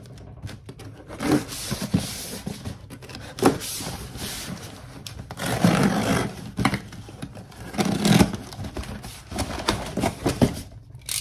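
A cardboard shipping box being opened: packing tape peeled and cut, cardboard flaps scraping and rustling. The sounds come as a series of short scrapes, with a longer tearing scrape about six seconds in.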